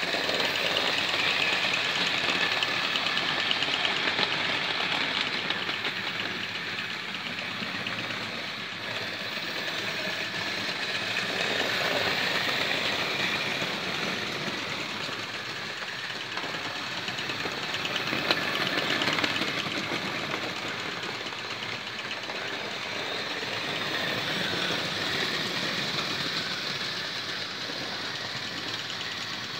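Hornby 00-gauge model locomotives hauling a train of wagons round the track: a steady whirr of small electric motors with the fine clatter of wheels on rail, growing louder and fading again several times as the train passes close by.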